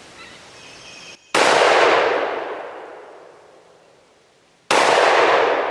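Two shots from a 20 gauge over-and-under shotgun firing light target loads, about three seconds apart. Each is a sharp blast whose echo trails off over a couple of seconds.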